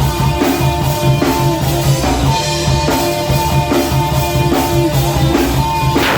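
Rock band playing: a drum kit keeping a steady beat under a repeating electric guitar riff, with a cymbal crash right at the end.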